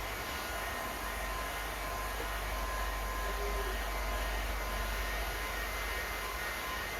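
Heat gun running steadily: a constant rush of blown air with a faint, steady high whine.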